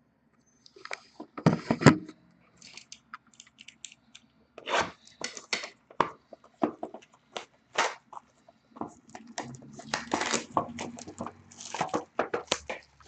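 A sealed box of trading cards being unwrapped and opened: irregular tearing and crinkling of wrapping, with short rustles and clicks of handling.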